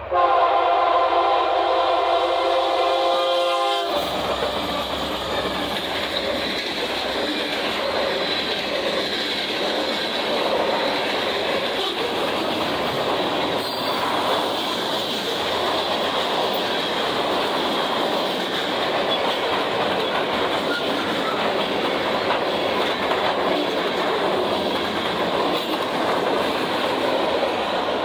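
Union Pacific SD70M locomotive's air horn sounding one long, loud chord that cuts off about four seconds in. After it comes the steady rumble and rattle of the freight train's locomotives and cars rolling past on the rails.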